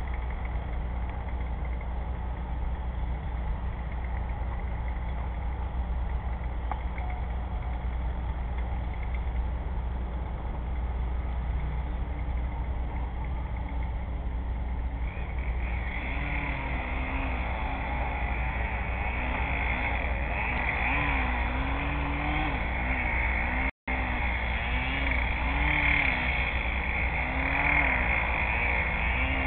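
Steady low hum, joined about halfway by a distant engine-like drone whose pitch wavers slowly up and down, with a higher hiss. The sound cuts out for an instant near the end.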